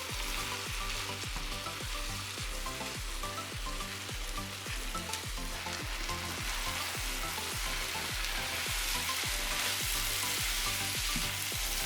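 Chicken udon stir-fry sizzling in a hot pan as the noodles, chicken and vegetables are stirred in a sauce thickened with a thickening agent; the sizzle grows a little louder in the second half. Background music with a steady beat plays underneath.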